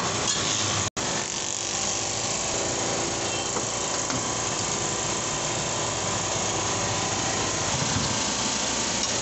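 A steady mechanical drone with a hiss, like a running motor or engine, that breaks off for an instant about a second in.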